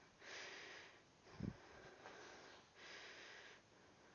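Faint heavy breathing of a woman exercising, picked up close by her headset microphone: noisy breaths in and out in a steady rhythm, with a dull thump about a second and a half in.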